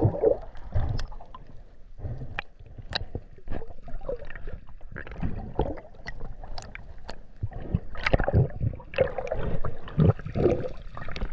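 Underwater sloshing and gurgling of water around the camera housing as a diver swims just under the surface, broken by scattered short clicks and knocks.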